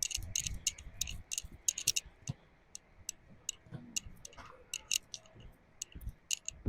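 A person crossing a hands-and-feet obstacle course section over gym mats: irregular light clicks, several a second, with soft low thumps from hands and feet landing.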